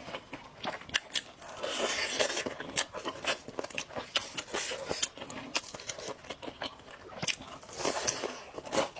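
Close-miked biting and chewing of crunchy food, with many sharp crunches and bursts of crackling.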